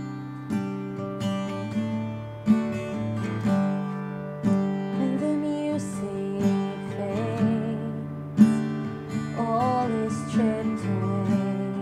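Acoustic guitar playing slow worship music, chords struck every second or two and left ringing, with a softer wavering melody line coming in about halfway.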